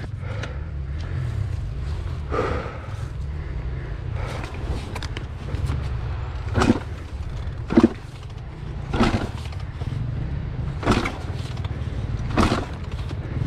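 Two-stroke KTM dirt bike engine running low under heavy load in deep mud, with the exhausted rider's loud, heavy breaths coming about every second and a half through the second half.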